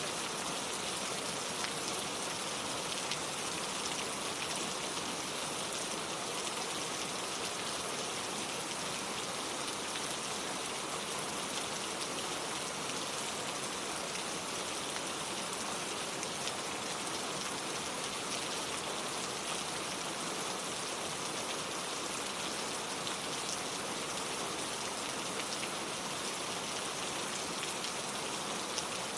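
Steady rain falling, an even hiss with scattered sharp drop hits.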